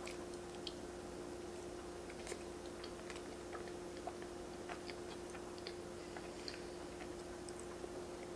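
Faint, soft chewing of a mouthful of chocolate ganache cake: scattered small wet mouth clicks over a steady low hum.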